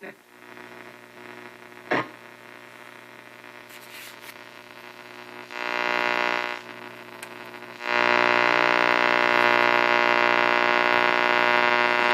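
Delco AM push-button car radio hissing and buzzing between stations: static with a steady buzz, broken by a sharp click at the start and another about two seconds in. The buzz swells briefly about five and a half seconds in, then comes back loud and holds from about eight seconds on.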